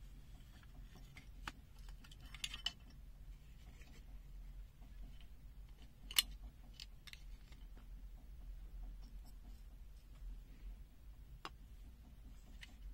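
Faint, scattered clicks and taps of the opened ANENG SZ06 multimeter's plastic case and small parts being handled, with a sharper click about six seconds in.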